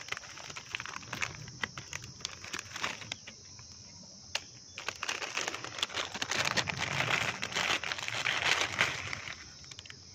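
Plastic instant-noodle packet crinkling and rustling as the noodle block is worked out of it, busiest in the second half. A steady high insect drone runs underneath.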